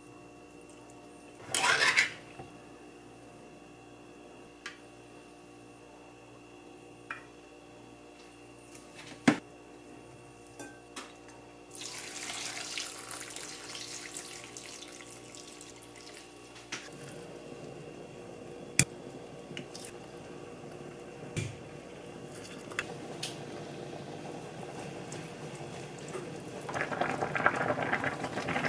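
Pot of budae-jjigae being put together: a brief clatter about two seconds in and a few sharp clicks of tongs and dishes, then broth poured into the pot for a few seconds starting about twelve seconds in. From about seventeen seconds the stew is simmering, and its bubbling grows louder near the end as it comes to the boil.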